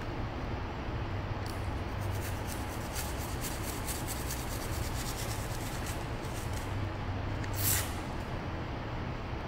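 Hand tool scraping and carving foam in a run of short, quick strokes, with one louder scrape near the end.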